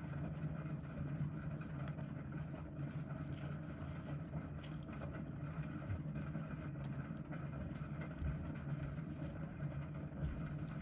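Steady low hum of background room noise, boosted by high recording gain, with a few faint small clicks.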